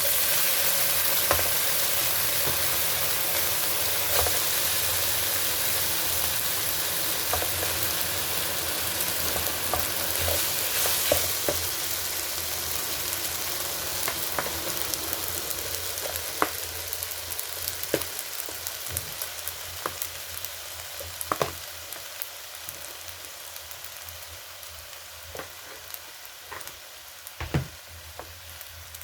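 Food hitting hot oil in a frying pan and sizzling loudly. The sizzle starts suddenly and fades slowly, and in the second half a utensil stirring the food clicks against the pan now and then.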